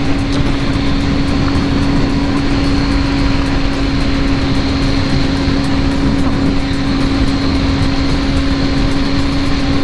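Triumph Street Triple 675 R's inline three-cylinder engine running at steady revs while riding, with a constant rush of wind noise over the microphone.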